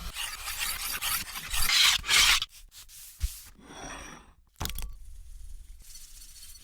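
Rough rubbing and scraping noises, strongest in the first two and a half seconds, followed by a single sharp click and a short hiss.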